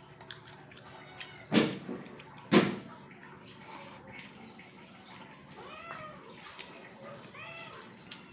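Two loud thumps about a second apart, then a cat meowing several times in short rising-and-falling calls over the second half.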